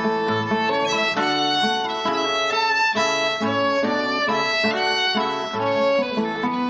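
Fiddle playing a folk tune in a quick run of short notes, over lower held notes.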